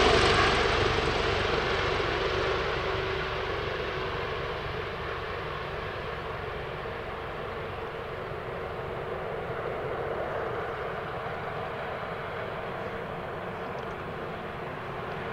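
Twin-turbine police helicopter climbing away after takeoff: rapid rotor beat under a steady engine hum, fading over the first several seconds, then holding at a lower level.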